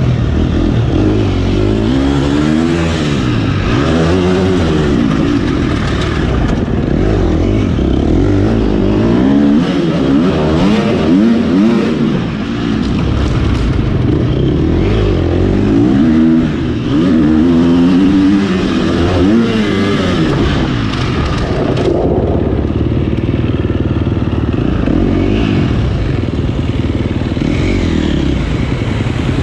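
Husqvarna FC250 dirt bike's 250 cc single-cylinder four-stroke engine, heard from onboard, revving up and down hard with the throttle and gear changes as it laps the track. About two-thirds of the way through it eases off to a lower, gentler run as the bike slows.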